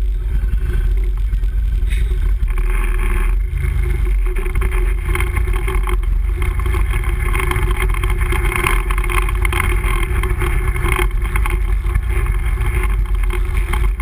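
Can-Am Renegade ATV engine running steadily while the quad rides along a gravel trail, heard close from the machine itself.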